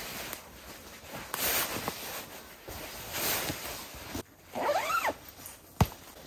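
Nylon hammock fabric and an inflatable sleeping pad swishing and rustling in several strokes as the pad is pushed into the hammock. About five seconds in comes a short squeak that rises and falls in pitch, followed by a single sharp click.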